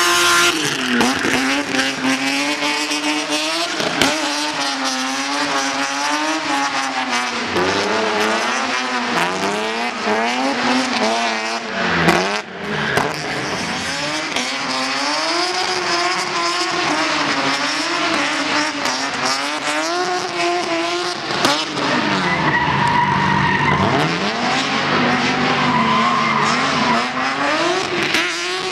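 BMW E36 drift car's engine revving up and down repeatedly as it slides through the corners, with the rear tyres squealing and skidding. The tyre squeal holds steadier in the later part.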